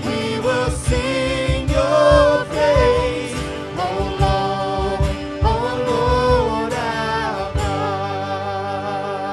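Christian worship song: voices singing over a band with a steady drum beat. The drums drop out near the end, leaving sustained chords.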